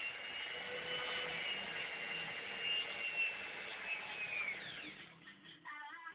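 Electric drill running with a steady high whine, then winding down in pitch and fading about four and a half seconds in.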